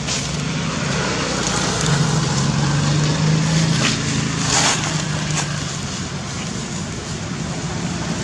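A steady low engine hum under a constant hiss, with a few short crackles about four to five and a half seconds in.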